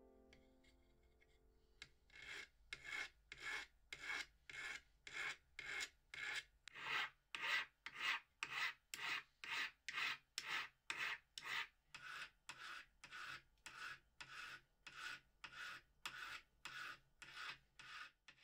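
Flat hand file rasping back and forth across a small metal piece resting on a wooden bench pin, in a steady rhythm of about two strokes a second that starts about two seconds in.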